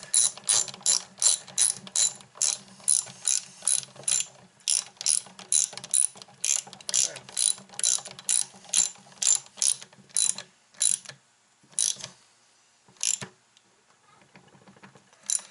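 Hand ratchet wrench clicking as it snugs the winch motor's long through-bolts, about three clicks a second. The clicking thins out to a few single clicks in the last few seconds.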